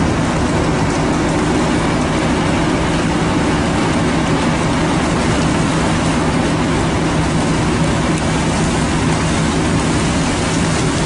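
Fishing boat's engine running steadily: a constant low hum under a wide, even hiss.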